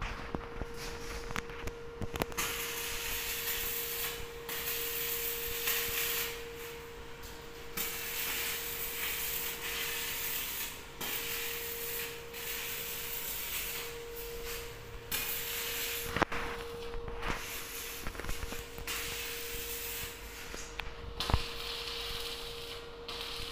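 Electric arc welding on a steel lift cage: the arc crackles and hisses in runs of a few seconds, with short breaks between welds. A steady hum runs underneath, and there are a couple of sharp clicks.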